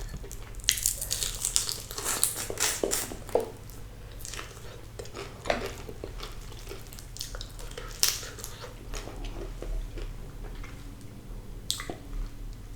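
Close-miked eating of fried sea bass: a dense run of crisp crunching bites in the first few seconds, then slower chewing with a few sharp crunches and soft mouth sounds.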